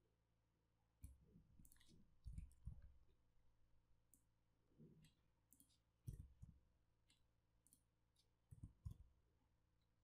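Faint computer keyboard keystrokes, a few scattered clicks in short clusters, against near silence.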